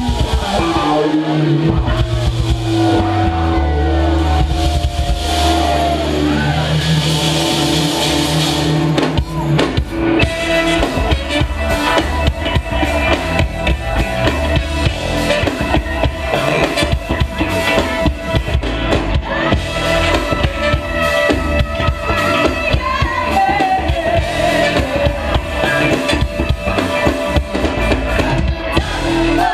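A live funk band playing, heard from the audience: long held chords and bass notes for about the first nine seconds, then the drums and full band come in with a steady beat.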